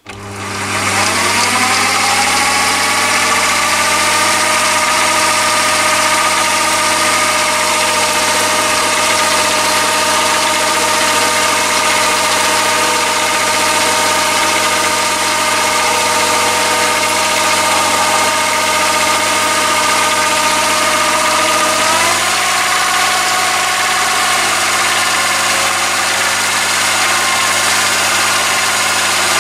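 Chinese mini lathe starting up, its motor spinning up over the first second, then running steadily with a whining drive and gear train under power feed. The whine steps down in pitch about 22 seconds in.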